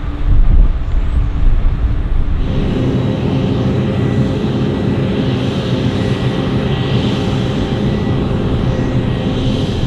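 Heavy farm machinery running: a low rumble that changes abruptly about two and a half seconds in to a steady engine drone with a hiss above it.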